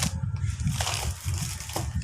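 Plastic packaging crinkling and crackling as it is handled.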